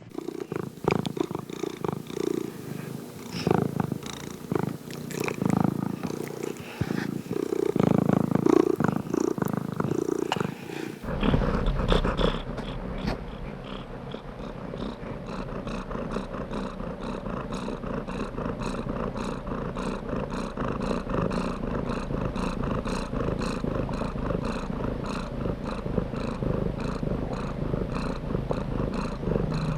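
Domestic cat purring, an uneven pulsing rumble at first; about eleven seconds in it changes abruptly to a steadier, evenly pulsing purr.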